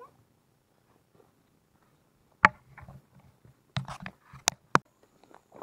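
Gear carried while walking: a single sharp click about two and a half seconds in, then a quick cluster of sharp clicks and knocks with a few dull thuds around four seconds in.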